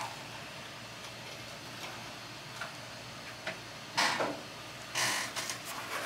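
Gloved hands handling a titanium-handled balisong: faint rustling with a few light ticks, and two louder, brief brushing sounds about four and five seconds in.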